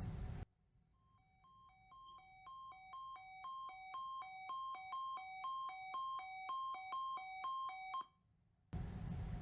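Weather alert radio receiver sounding its alert on a NOAA Weather Radio test: an electronic two-note beep alternating high and low about twice a second, growing steadily louder, then cutting off suddenly. Hissy radio audio briefly at the start and again near the end.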